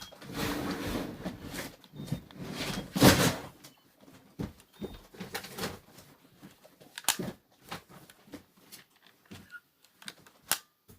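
A plastic toy phone being handled: a rustle over the first few seconds, a loud knock about three seconds in, then scattered sharp clicks and knocks.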